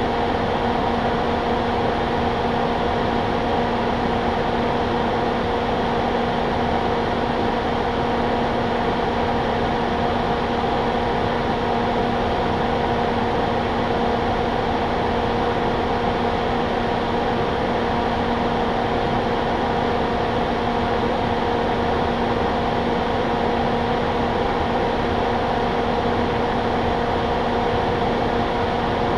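Steady mechanical hum: a constant drone at several fixed pitches over an even hiss, unchanging throughout.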